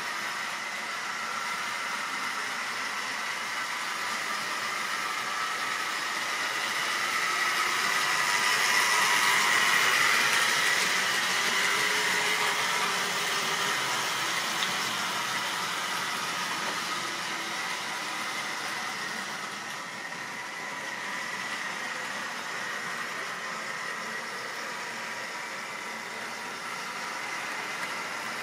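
Model railway train running on the layout's track, a steady whirring whine of its small electric motor and wheels on the rails. It grows louder toward the middle as it passes closer, then fades back.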